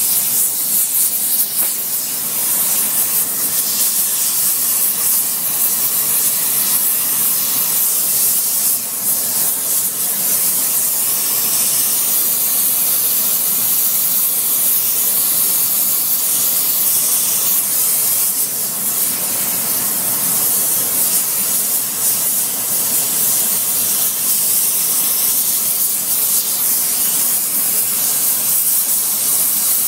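Gas brazing torch flame hissing steadily as it heats the edge of a steel hammer to braze on TufCote hardfacing alloy.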